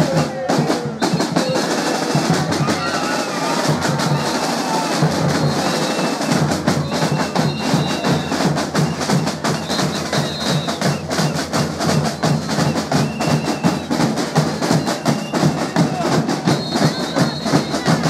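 Drums and percussion playing a quick, steady beat, with voices over the top.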